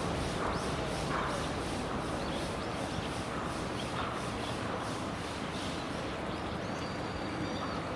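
Steady background hiss with scattered short bird calls every second or so, and a thin high whistle near the end.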